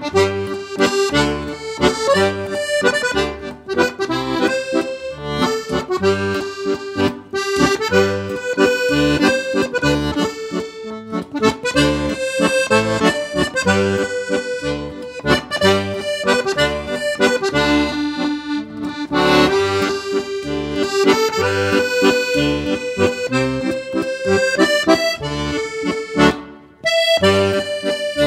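Accordion-led background music over a regular bass beat, breaking off briefly near the end.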